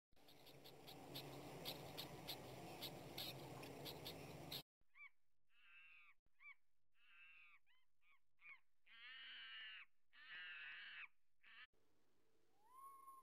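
Cartoon animal-call sound effects: a noisy hiss with regular ticks for about four seconds, then a run of short pitched animal calls followed by two longer calls, and one rising call near the end.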